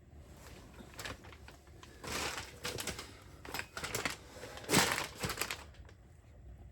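Metal clatter and scraping as a motorcycle crash bar is held up and test-fitted against the frame, a run of clicks and knocks with the loudest knock about five seconds in.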